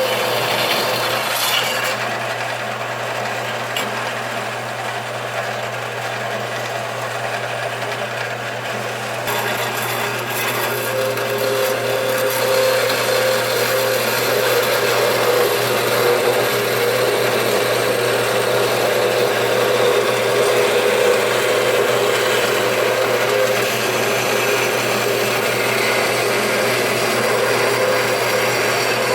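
Band saw running, its blade cutting through thick brass bar stock: a steady grinding noise over the motor's hum, with a higher steady tone joining about eleven seconds in.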